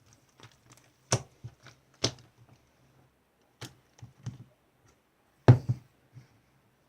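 A series of irregular taps and knocks, the loudest about a second in, two seconds in and five and a half seconds in.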